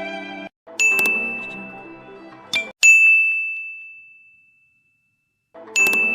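Ding transition sound effect: a bright, high bell-like ding that rings and fades away. It sounds about a second in over a brief jumble of other tones, comes again clean about two seconds later, and starts once more near the end after a gap of silence. The last half second of violin music runs out at the start.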